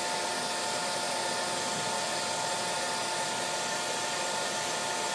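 Handheld hair dryer running steadily: an even rushing of air with a steady motor whine.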